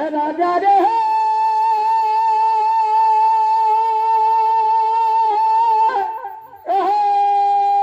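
Music from a wind instrument. It holds one long, steady note for about five seconds, breaks off briefly near the end, then starts a slightly lower long note.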